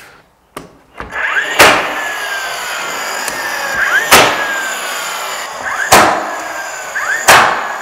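Cordless battery-powered nailer firing four nails through door trim into the framing. Each shot is a sharp crack, preceded by a short rising whir as the motor spins up, and a whine fades between shots.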